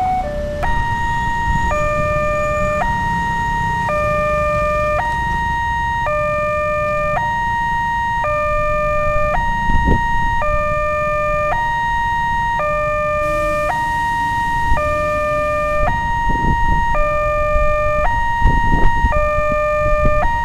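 Railway level-crossing warning siren: an electronic two-tone alarm alternating between a lower and a higher pitch about once a second, over a low rumble of road traffic.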